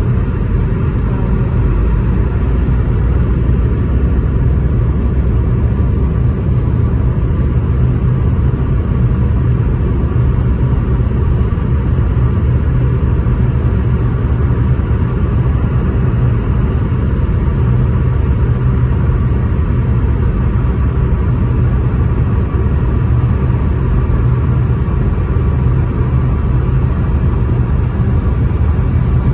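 Steady low rumble of a jet airliner heard from inside the cabin: engine and airflow noise with a few faint steady tones, unchanging throughout.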